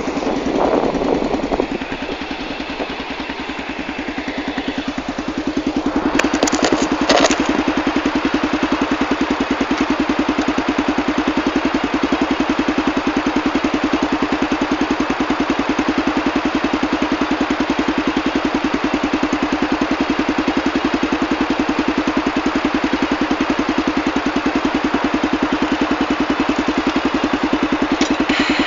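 Single-cylinder four-stroke ATV engine idling steadily, getting a little louder about five seconds in, with a couple of brief clicks a second or so later.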